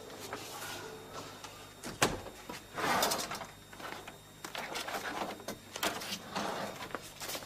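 An office door shut with a sharp knock about two seconds in, then papers and a cardboard file rustled and shuffled on a desk in irregular bursts as they are searched through.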